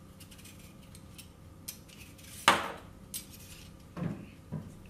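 Kitchen handling sounds: light scraping of a hand peeler on a sweet potato, and one sharp knock of a hard item about halfway through, followed by a few smaller knocks.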